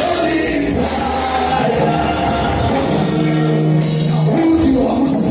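Gospel worship music playing in a church hall, with held notes and some singing.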